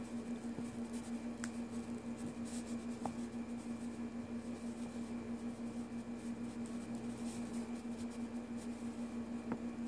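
A steady low hum runs throughout, with a few faint small clicks from hands handling a pen spring and charger cord.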